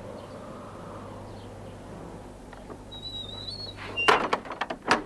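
A door being unbolted and opened: a brief high creak, then a quick run of sharp clacks and knocks from the latch and bolts about four seconds in, over a steady low hum.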